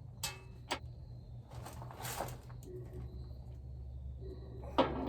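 Two sharp clicks, a brief rustle and another click near the end, from hand tools and wire being handled, over a low steady hum.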